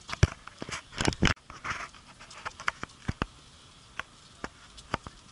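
Irregular clicks, taps and short scuffing rustles, the handling and clothing noise of a body-worn camera as its wearer walks, with the loudest cluster about a second in and sparser clicks about half a second apart after that.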